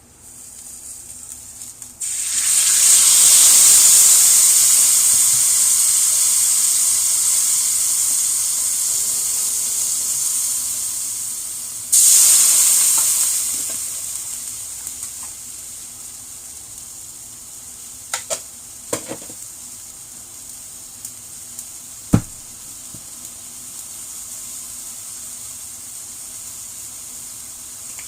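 Hot cooking oil sizzling loudly, flaring up suddenly twice as food is added: once about two seconds in, fading slowly, and again about ten seconds later. A few sharp clicks follow near the end.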